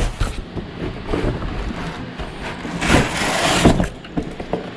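Handling noises as the floor polisher is opened and worked on by hand: scattered knocks and clatter, with a loud scraping rustle lasting about a second around three seconds in.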